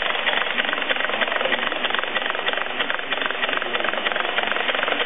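Prototype rotary motor running on compressed air: a steady, rapid mechanical clatter over a rush of air.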